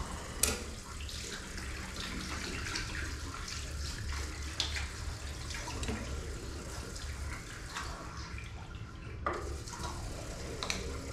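A washroom sink tap runs steadily into the basin. A few sharp clicks and knocks sound over it, as small things are handled and set down on the counter.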